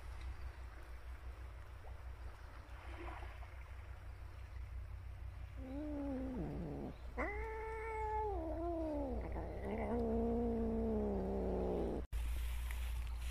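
A cat giving three long, low yowls in a row, starting about halfway through, each drawn out and dropping in pitch at its end; the last is the longest, over two seconds.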